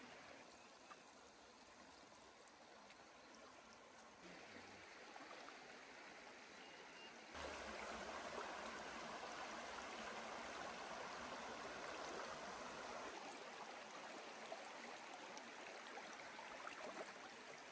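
Shallow, rocky stream running over stones: a steady rush of water that grows louder about seven seconds in.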